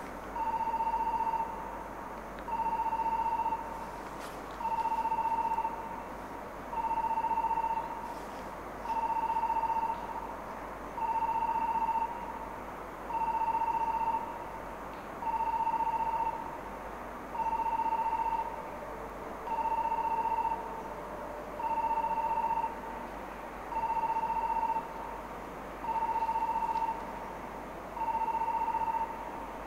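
Electronic warning beeper at a railway station sounding long, steady beeps, about one every two seconds.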